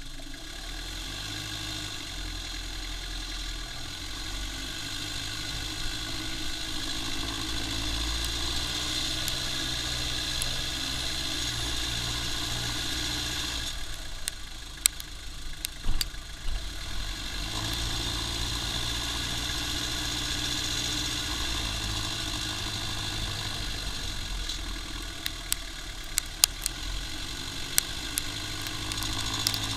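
Toyota Lucida's turbodiesel engine running steadily, heard from a microphone mounted under the car while it drives, with road noise. About halfway through, the engine sound drops away for a few seconds, then comes back. Scattered sharp clicks and knocks come in the middle and again near the end.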